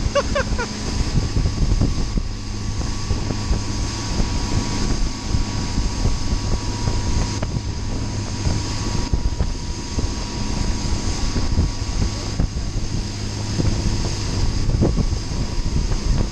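Motorboat engine running steadily at speed under the load of a towed tube, with wind buffeting the microphone and the rush of the churned wake.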